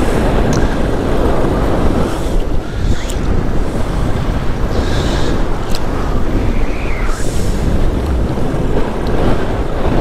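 Strong wind buffeting the microphone of a paramotor in flight through storm-force turbulence: a loud, ragged rush that swells and dips without letting up.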